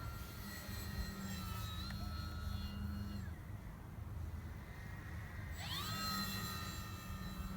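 RC airplane's motor and propeller whining as it flies. The whine drops away about three seconds in and comes back about five and a half seconds in, rising in pitch and then holding steady as the throttle comes up.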